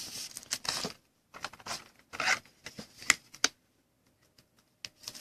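Trading cards being handled at close range: a run of short rubbing and scraping sounds with sharp clicks, pausing for about a second near the end before starting again.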